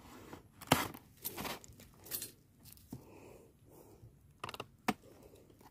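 Handling noises: irregular light clicks, scrapes and rustles, the sharpest click about a second in.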